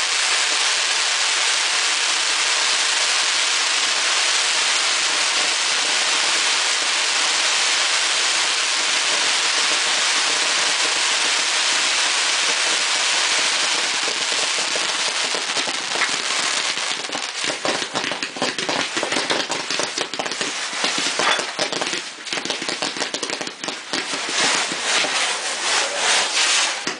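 Fireworks display: a dense, unbroken crackling hiss for the first half, then from about halfway through it breaks up into rapid, irregular pops and crackles that rise and fall in loudness.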